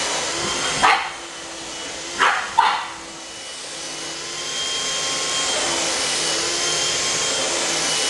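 Handheld vacuum cleaner running with a steady whine, its sound dropping about a second in and building back up a few seconds later. A pug puppy barks three times over the first three seconds.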